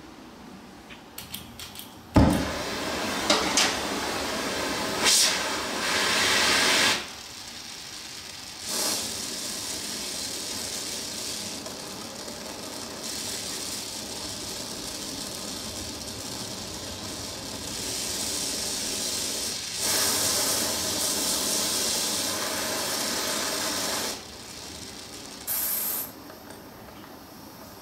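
Oxy-fuel cutting torch being lit: a few light clicks, then a pop about two seconds in as it catches, followed by a steady flame hiss that steps louder and quieter several times. A short, higher hiss comes near the end.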